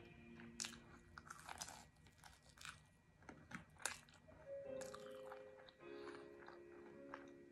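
Crunching and chewing of fried onion rings, with sharp crisp bites bunched in the first four seconds. Soft background music with held notes runs underneath and comes forward in the second half.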